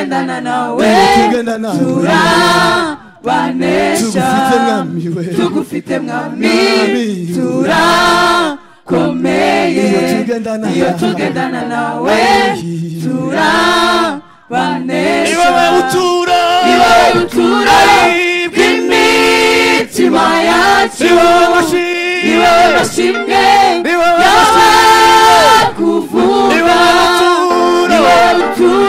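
A group of men and women singing a song together into microphones, mostly unaccompanied, with a few brief breaks between phrases.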